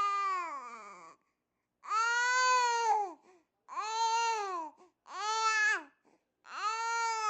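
Six-month-old baby making long high-pitched vowel sounds, five in a row with short pauses between, each rising slightly and then falling away in pitch.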